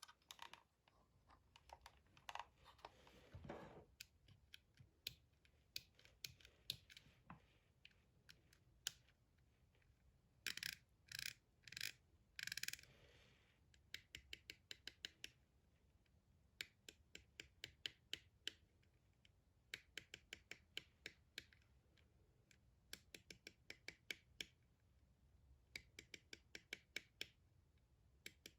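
Faint tapping and clicking on a gaming keyboard and mouse: quick runs of sharp clicks, several a second, broken by scratching and rubbing sounds, with a few louder scratchy strokes around the middle.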